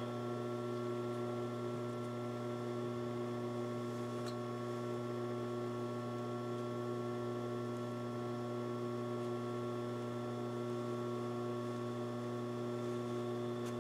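Steady low electrical hum, unchanging throughout.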